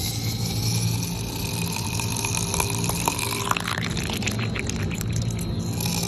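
Sucker-rod oil well running at the wellhead: the polished rod strokes through the stuffing box over a steady low hum. About halfway through, a stretch of rapid clicking and crackling comes in, with a short rising squeak.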